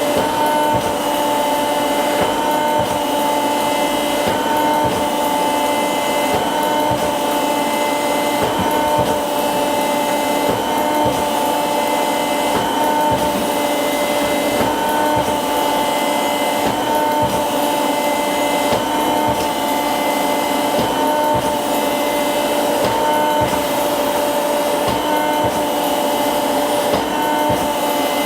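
Motorised flexion-distraction chiropractic table running, its motor giving a steady whirring hum with a pattern that repeats about every two seconds as the table moves through its cycle.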